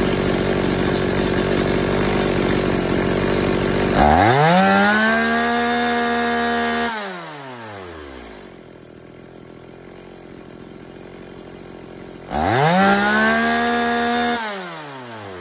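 Two-stroke chainsaw with a freshly rebuilt carburetor, revved twice from idle to wide-open throttle. Each time the pitch rises to a steady high scream, holds for two or three seconds, then drops back to idle. At full throttle it over-revs to about 14,000 rpm, far too high for the saw, so the carburetor still needs fine tuning.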